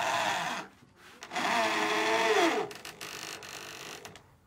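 Cordless drill/driver whining in short bursts as it drives screws through a 15-inch woofer's frame into the subwoofer box. The longer second burst drops in pitch near its end as the screw tightens down, then the drill runs on more quietly for a moment.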